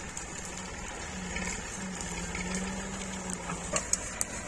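Tractor-driven wheat thresher and its Massey Ferguson 240 tractor running: a steady mechanical drone with a constant hum, and a few sharp clicks near the end.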